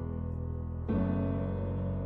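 Piano music: slow chords held and left ringing, with a new chord struck about a second in.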